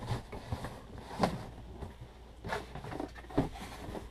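Cardboard boxes being handled as the boxed RC car is lifted out of its shipping carton and set down. There are a handful of short cardboard scrapes and dull knocks, the loudest about a second in.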